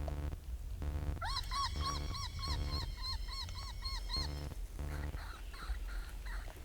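A quick run of high, arched yipping calls, about four a second for roughly three seconds, over lower buzzing pulses. Fainter yips follow near the end. These are coyote-type calls on a predator-calling set.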